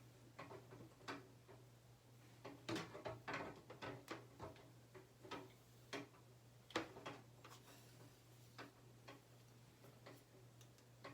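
Faint, irregular clicks and rustles of a curling iron being handled and hair being wound, over a steady low hum.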